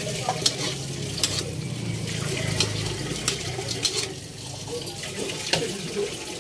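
A metal spoon stirring string beans and dried anchovies in a wok of sauce, with sharp clinks and scrapes of metal on metal every second or so over a steady sizzle.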